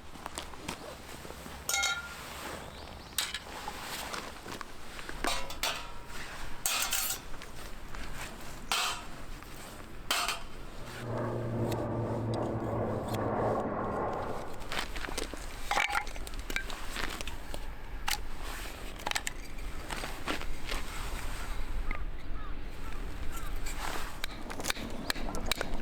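Metal camp cookware and utensils being handled, giving scattered short knocks and clinks, with a low hum lasting a few seconds near the middle.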